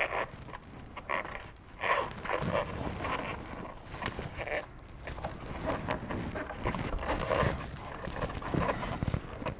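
Handling noise from a car door's wiring harness: irregular rustling and scraping of rubber boot, plastic connector and cables being pulled and pushed by gloved hands.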